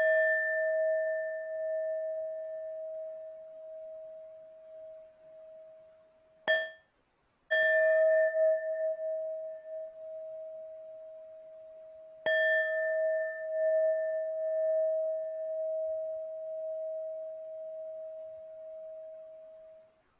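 Tibetan singing bowl struck several times, each strike ringing with one steady, slightly wavering tone and higher overtones that slowly fade. A short strike about six and a half seconds in is stopped almost at once, then fresh strikes come about a second later and again about twelve seconds in. The last ring stops just before the end.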